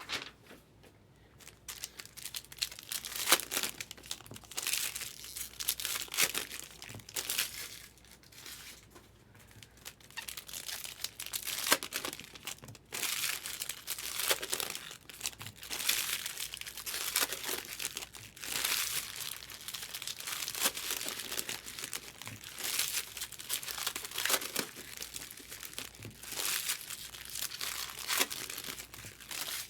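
Plastic-and-foil baseball card pack wrappers crinkling and tearing in an irregular run of rustles, with brief pauses.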